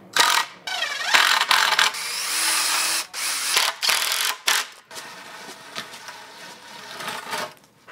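Cordless drill running in several short bursts over the first five seconds, driving screws into a wooden frame; after that only faint clicks and handling.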